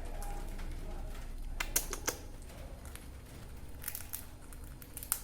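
Parrot biting and crunching a crisp papad with its beak: a few short, sharp cracks, a cluster about one and a half to two seconds in, more near four seconds and one near the end.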